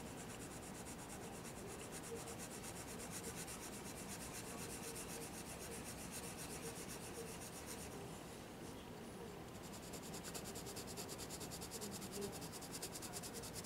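Colored pencil shading on sketchbook paper: faint, quick back-and-forth scratching strokes, more distinct about ten seconds in.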